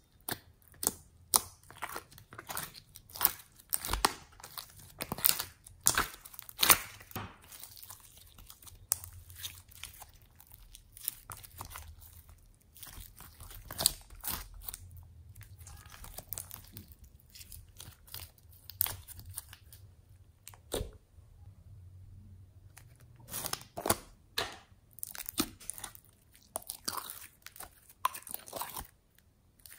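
Clear glitter slime squeezed and poked by hand, giving a run of sharp sticky pops and crackling clicks, with softer squishing between the louder bursts.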